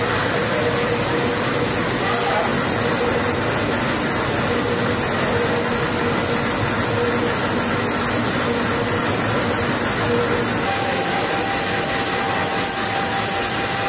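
Heat-perforation film machine (FSE CHP1000) running with a steady mechanical hiss and hum and a constant tone in it; a second, higher steady tone joins about three-quarters of the way through.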